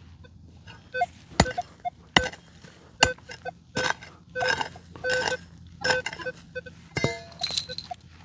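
A digging tool striking stony soil, with sharp clinks and scrapes about once or twice a second, while a metal detector gives short beeps between the strokes.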